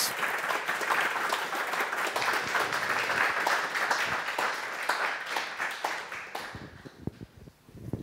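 Audience applauding: dense clapping that dies away after about six seconds into a few scattered claps.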